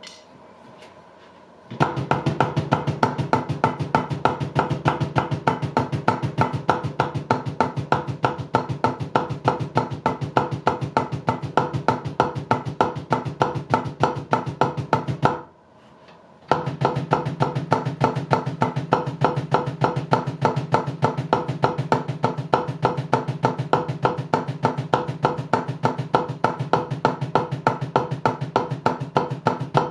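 A fast, even stream of bass drum strokes played with a double kick pedal on a Roland V-Drums electronic kit. The run stops briefly about halfway through and starts again a second later.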